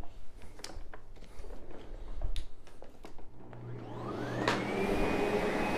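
A few scattered clicks and knocks, then about three seconds in the Sebo X8 upright vacuum switches on. Its motor spins up slowly with a rising whine and settles into a steady run: the electronic soft start feeding power to the motor gradually.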